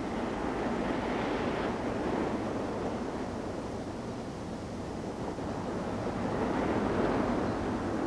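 Sea waves washing: a steady rush of water noise that swells about a second in and again near the end.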